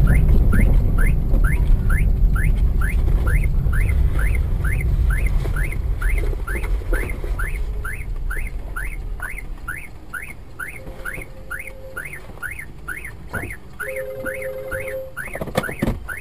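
Low rumble of a car's engine and tyres heard from inside the cabin, dying down over the second half as the car comes to a stop. Over it runs a steady series of short rising chirps, about two and a half a second, and two short steady tones come in near the end.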